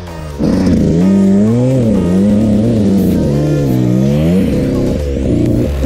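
Dirt bike engine revving up and down again and again as the throttle is worked on a rough off-road trail, its pitch rising and falling about once a second. It gets much louder about half a second in.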